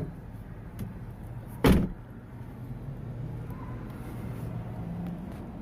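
A car door shuts with a single loud thud about a second and a half in, over the steady low hum of a car.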